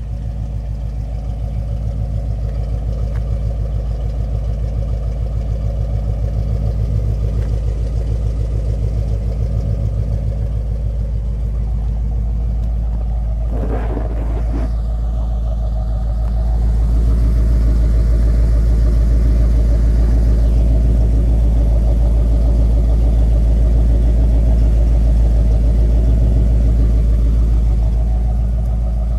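1979 Ford F-150's 351M V8, with headers and dual stainless exhaust, idling with a steady low exhaust rumble. The rumble gets louder in the second half, after a short rush of noise about halfway through.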